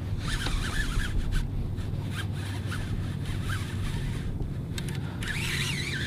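Fishing reel being cranked steadily against a hooked redfish, a low steady rubbing and winding noise with handling noise on the rod.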